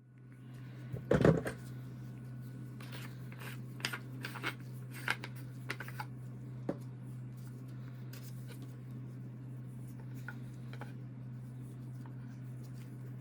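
Clicks, knocks and light scrapes of a vintage rotary telephone's parts being handled during a teardown. The loudest knock comes about a second in, the clicks thin out after about seven seconds, and a steady low hum runs underneath.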